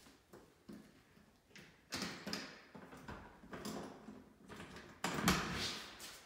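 A door being moved in a small bathroom: a rushing scrape with a rattle about two seconds in and a louder one about five seconds in, each fading over a second, with scattered light clicks.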